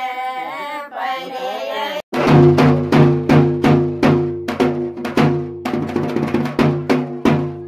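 A group of women singing a devotional song together, cut off about two seconds in by loud drumming: a steady beat of deep drum strikes with a few quick rolls, over a low pitched hum.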